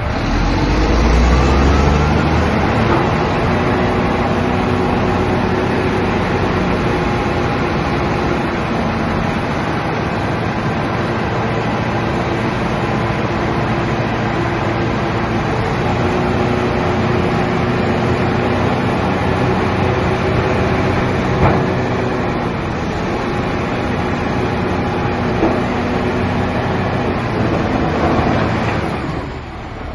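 Komatsu D155 bulldozer's diesel engine revving up over the first few seconds, then running steadily at high throttle. Two short knocks come in the later part, and the engine note falls away near the end.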